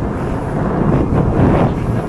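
Wind buffeting the microphone, a loud rumbling rush that swells and eases.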